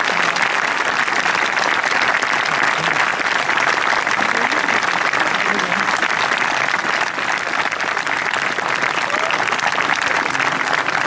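Gallery of golf spectators applauding steadily around the green for a holed winning putt.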